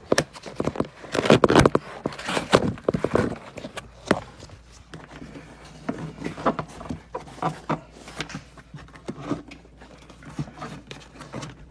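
Plastic interior trim in a car being pried up and handled: a dense run of clicks, knocks and rustling in the first few seconds, then scattered taps and clicks.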